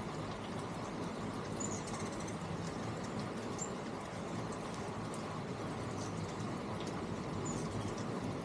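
A few short high chirps from hummingbirds, about five scattered through, over a steady background hiss.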